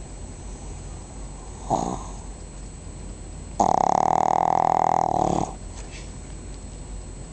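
Pug snoring: a short snore about two seconds in, then one long, loud snore lasting about two seconds.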